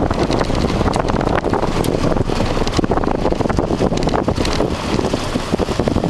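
Toyota RAV4 driving over a rough sand track: wind buffeting the microphone over the rumble of the tyres and suspension, with many small knocks and rattles from the jolts.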